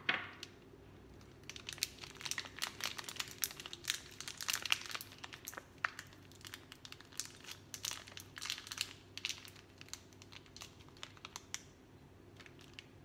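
Plastic packaging crinkling and crackling in the hands as a block of tamarind pulp is worked out of its wrapper into a small bowl, in irregular bursts that fade out near the end.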